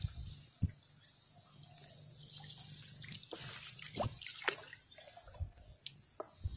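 Water dripping and small splashes on a muddy river's surface around a bamboo lift net: scattered short, sharp plops and drips, a few of them louder.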